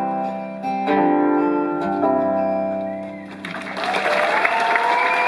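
The final guitar chords of a live rock song are struck and ring out, fading away. About three and a half seconds in, the audience breaks into applause and cheering.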